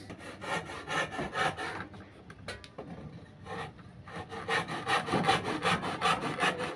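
A hand tool worked back and forth on wood, quick rasping strokes in two runs with a short break about two seconds in.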